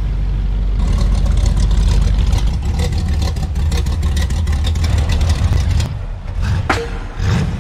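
Classic car and hot rod engines rumbling at low speed as the cars roll past one after another, the engine note changing from car to car. A few sharp clicks near the end.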